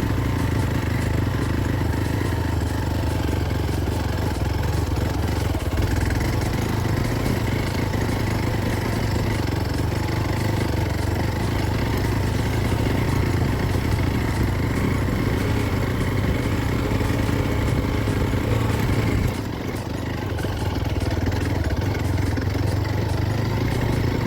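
An engine running steadily, with a short dip in level about twenty seconds in.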